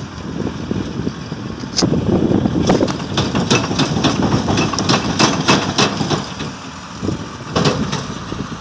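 Wheel loader's diesel engine running, with a run of sharp knocks and rattles from about two to six seconds in.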